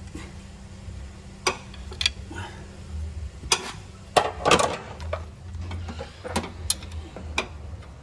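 Scattered metallic clicks and clinks of a 12 mm box wrench and a pry bar on the engine as the air-conditioning compressor drive belt is tensioned and its bolt tightened, the loudest clatter about four seconds in. A steady low hum runs underneath.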